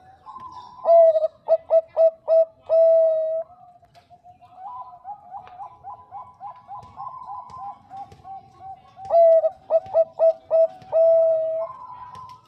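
Bangkok-strain perkutut (zebra dove) singing. It gives two loud song phrases, each a quick run of short staccato coos ending in a long drawn-out coo. Between the phrases is a quieter run of rapid coos.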